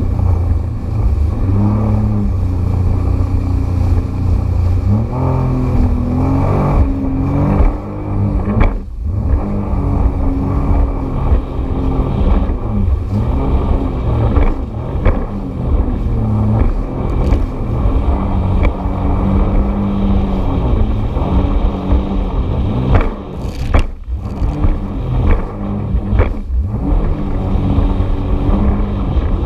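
Jet ski engine running under way, its pitch rising and falling with the throttle, over the rush of water and wind. The sound dips briefly a few times.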